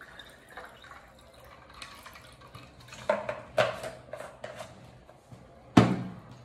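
Water poured from a plastic bottle into a glass of buttermilk, followed around three to four seconds in by short scrapes and clicks of the bottle's plastic cap being screwed on, and one sharp knock near the end as the bottle is set down on the table.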